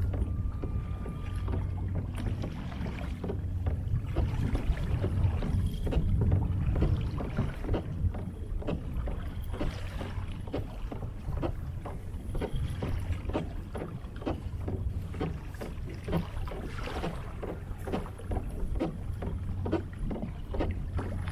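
Water splashing and lapping against the hull of a moving kayak in a steady run of small splashes, over a low wind rumble on the microphone.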